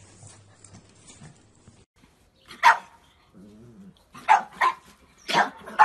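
A dog barking: faint room noise at first, then a single loud bark about two and a half seconds in, followed by four more barks in two quick pairs.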